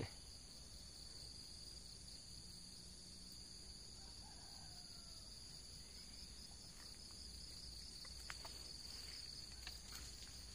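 Faint, steady high-pitched chorus of insects, with a few faint clicks near the end.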